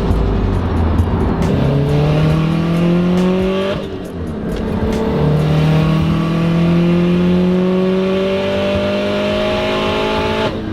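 Subaru flat-four engine accelerating under load. Its pitch climbs through one gear, drops suddenly at a shift about four seconds in, then climbs slowly for about five seconds before dropping again near the end. It runs clean with no misfire, the spark plugs having been regapped from 30 thou to about 25 to 26 thou.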